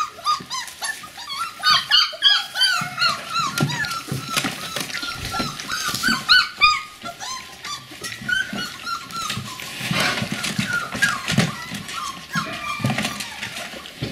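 Several Border collie puppies whining and squeaking in many short, high calls, thick and overlapping for the first half and sparser later, with scattered sharp clicks as they feed at the metal food pan.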